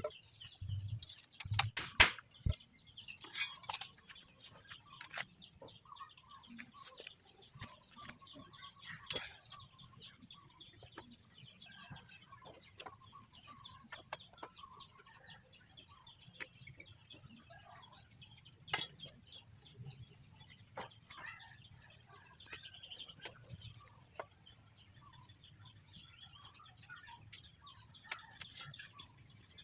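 Faint chickens clucking, with scattered sharp knocks and taps. A thin, wavering high-pitched whine runs through the first half and stops about sixteen seconds in.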